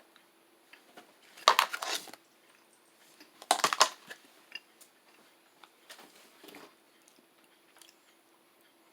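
The plastic pouch of dried cherries being handled just after opening: two short bursts of crinkling, about a second and a half and three and a half seconds in, followed by small clicks and rustles.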